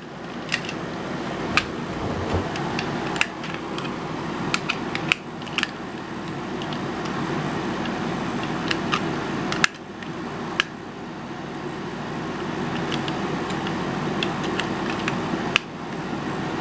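Scattered sharp metal clicks and rattles of a key being tried and worked in a mortise lock, over a steady fan-like hiss.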